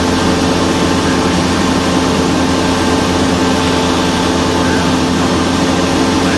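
Cessna 172's piston engine and propeller running steadily, heard inside the cockpit as a constant drone with a low pulsing rumble and a few steady tones.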